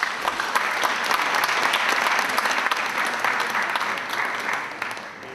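Audience applauding in a hall, starting at once and dying away over the last second or so.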